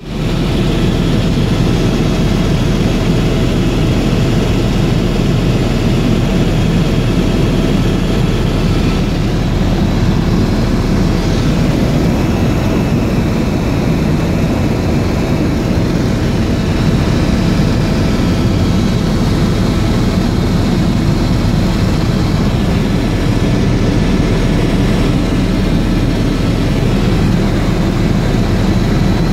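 Helicopter engine and rotor running steadily, a dense even drone with a thin high whine over it.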